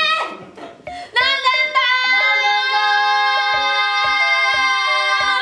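Two young women's voices singing a vocal warm-up. A first note fades out in the first half second. About a second in, a new note starts and is held steadily for over four seconds before it cuts off.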